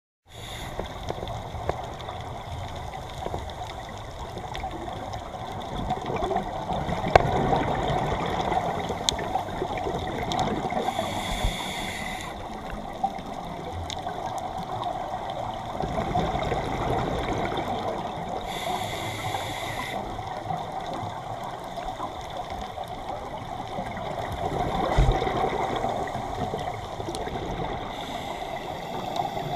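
Scuba divers breathing through regulators underwater: swells of bubbling exhalation over a steady watery wash, broken by three short hisses about eight seconds apart.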